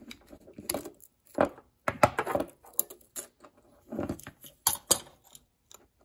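Shimano Deore XT M8100 rear derailleur being taken apart by hand: a series of light clicks and clinks of small metal and plastic parts as the cage comes loose from the body and its spring is handled, the sharpest about two seconds in.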